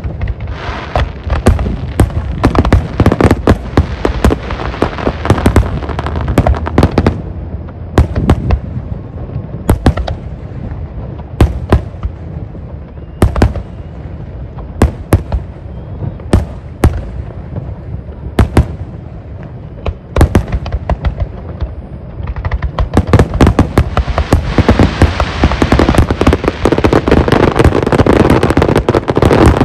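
Fireworks going off: a rapid string of sharp bangs, uneven in spacing. About 23 seconds in they thicken into a dense, continuous barrage of bangs and crackling.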